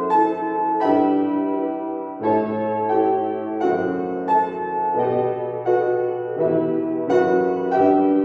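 Solo piano playing a slow passage, with full chords struck about once a second and left to ring under a melody.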